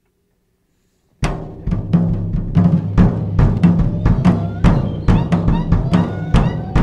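Instrumental intro of a punk rock song: a drum kit and bass guitar come in abruptly about a second in and play a fast, steady beat.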